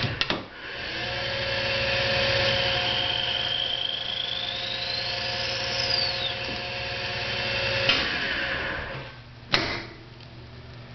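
Hardinge DV-59 turret lathe spindle running while a cross-slide tool cuts the bar stock, with a steady whir and a high whine that climbs in pitch and breaks off about six seconds in. The machine noise drops away around nine seconds, followed by a single sharp click.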